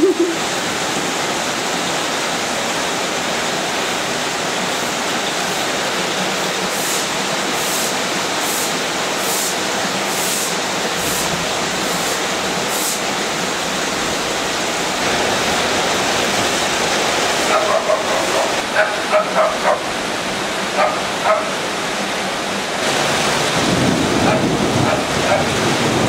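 Heavy rain pouring steadily, with runoff water rushing. About two-thirds of the way through, a dog barks a quick string of about half a dozen short barks.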